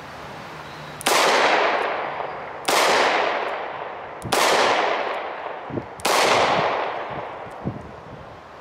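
Four shots from a Charter Arms Off Duty .38 Special snub-nose revolver, fired at a slow, steady pace about a second and a half to two seconds apart, each trailing a long echo that fades before the next shot.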